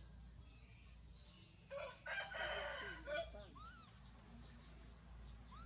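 A rooster crows once, about two seconds in, over faint, repeated bird chirps.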